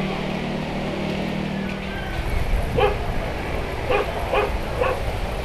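A low steady hum stops about two seconds in; then an animal gives four short calls in quick succession.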